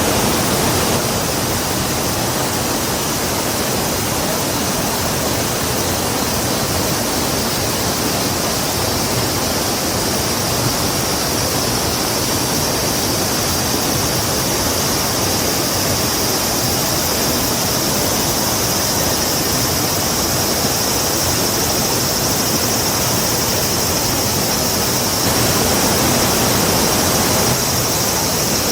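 Rushing river water, a steady, even rush with no break, and a steady high-pitched hum over it that grows stronger after the middle.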